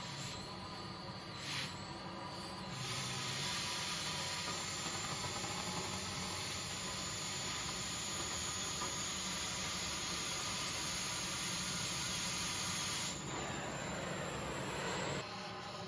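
Oxy-fuel cutting torch hissing steadily while cutting out the old weld inside a roller's end. The hiss turns louder and sharper about three seconds in, as the cutting oxygen is opened, and softens to the plain flame about thirteen seconds in, before dropping away near the end.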